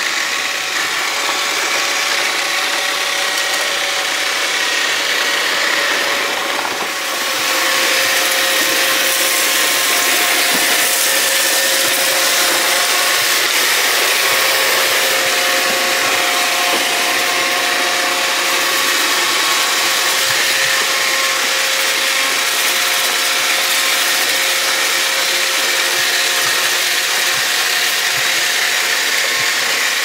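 iRobot Roomba 694 robot vacuum running over rough outdoor concrete and asphalt: the steady whir of its vacuum motor and brushes, with several steady whining tones. The sound dips briefly about seven seconds in, then carries on as before.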